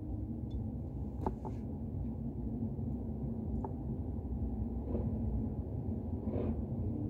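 Steady low rumble inside a car's cabin, with a few faint clicks.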